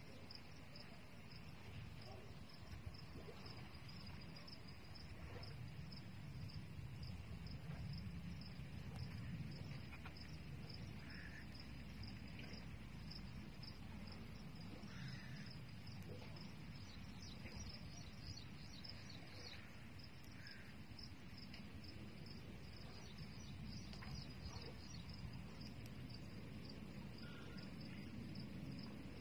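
Insects chirping steadily in a fast, high, pulsing trill over a low, even background rumble, with a few brief bird chirps now and then.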